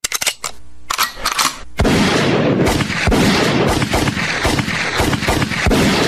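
Gunfire sound effect: a few separate shots, then from about two seconds in a dense, continuous volley of rapid shots that keeps going.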